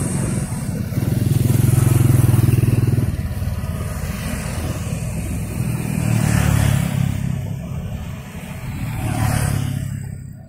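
Motor vehicles, motorcycles among them, passing close in three swells of engine noise, mixed with the rumble of a passenger train running off down the line.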